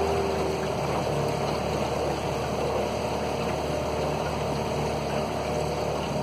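Outboard motor of a small aluminium boat running steadily under way, with water rushing along the hull.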